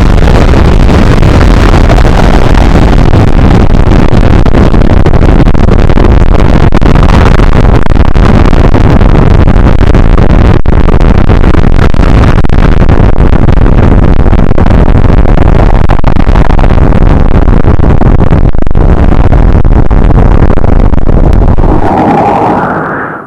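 Deafening, heavily clipped roar of distorted noise, an overdriven explosion sound, that bursts in abruptly and holds steady. Near the end it fades with a short rising whine, then cuts off suddenly.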